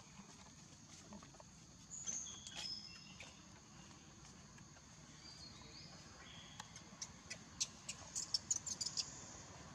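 Steady outdoor background with a few short, high chirping calls, then a quick run of sharp ticks near the end, the loudest sounds.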